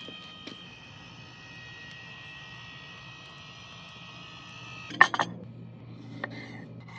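Electric rotisserie motor turning the spit with a steady high whine, which stops about five seconds in. Then a knife knocks sharply on a wooden cutting board three or four times in quick succession, followed by softer slicing sounds.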